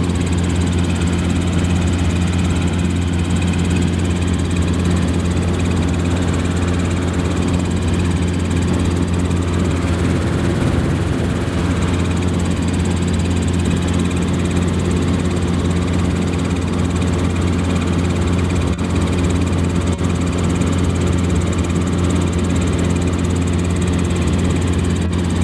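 Steady, loud drone of a helicopter's rotor and engine, heard from inside the cabin in flight.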